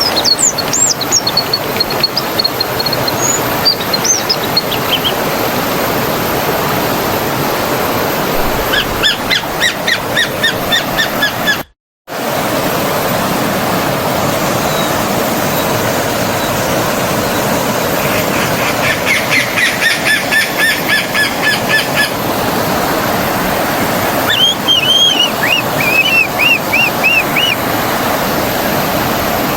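Forest stream rushing steadily, with songbirds calling over it: a few whistled notes at the start, then quick repeated trills of about five notes a second around 9 s and again around 19–22 s, and a run of rising-and-falling chirps near 25 s. The sound cuts out completely for about half a second around 12 s.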